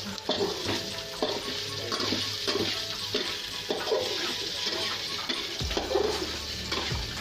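Pork sautéing in hot oil with garlic and onion in a pan: a steady sizzle with irregular scrapes and taps of a utensil stirring. A low steady hum joins in near the end.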